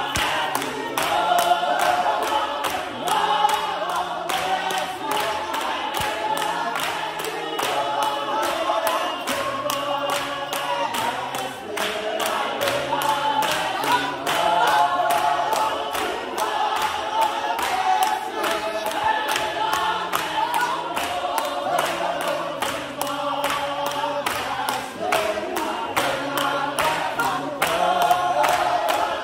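A congregation singing a lively hymn together, with a steady rhythmic beat of sharp strokes and a stepping low bass line underneath.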